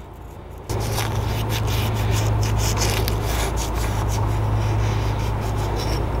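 A shop towel rubbing and scrubbing the carbon-caked crown of an engine piston. About a second in, a steady low hum starts up underneath and keeps going.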